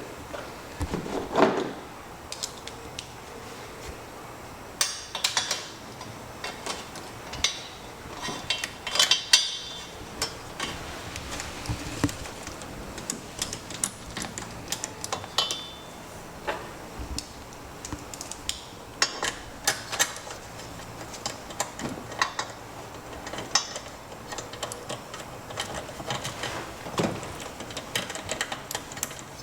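Irregular metal clinks and clatters of tools and engine parts being handled while the rebuilt big-valve cylinder head goes back onto a 236cc Tillotson stroker engine.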